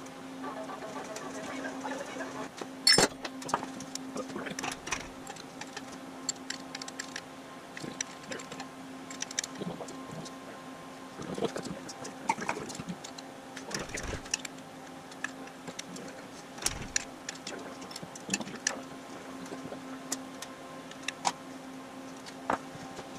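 Hand tools working on a Jaguar 2.4-litre XK straight-six engine during teardown: scattered metallic clicks and clinks of a wrench and socket on engine parts, with one sharp clank about three seconds in. A steady low hum runs underneath.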